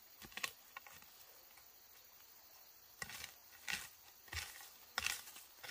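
Scattered short scrapes and knocks: a couple near the start, then several about a second apart in the second half.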